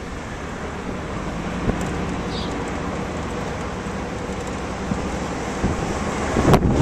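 Steady outdoor background noise, a low rumble and hiss with a few faint clicks, dropping out briefly near the end.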